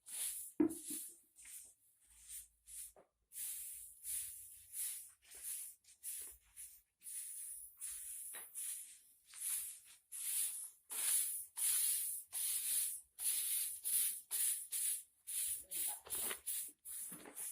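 Repeated sweeping strokes, each a short dry scratchy hiss, uneven at first and then coming steadily about twice a second: the rice-milling shed being swept clean.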